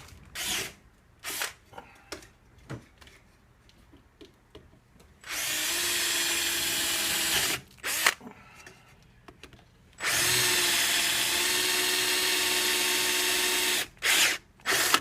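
Power drill running in two steady runs of a few seconds each, the second about twice as long as the first, with several short trigger blips around them.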